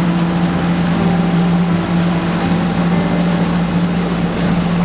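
Suzuki outboard motor running at a steady cruising speed, a constant low drone, with the rush of water from the boat's wake.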